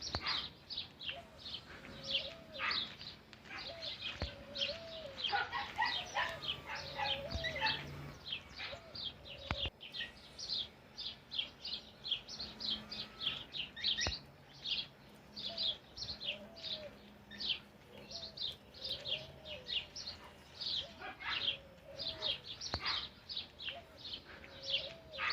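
Birds chirping without pause: many short, quick, high chirps that sweep downward, overlapping, with a lower curving call repeating every second or two underneath.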